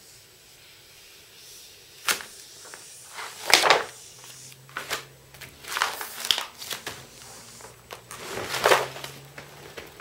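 Paper rustling and crinkling as a large pattern sheet is handled and pressed flat on the floor, in four short bursts with a sharp tap about two seconds in.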